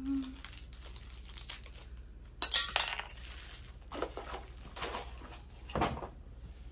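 Small hard pieces of scrap door hardware clinking and rattling as they are handled. There is a sharp rattle about two and a half seconds in, then a few lighter knocks.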